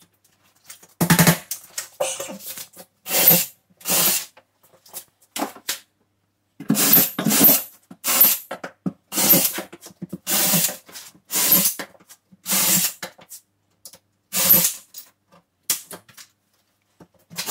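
Ryobi cordless drill run in about a dozen short bursts, each under a second, drilling a row of holes into drywall.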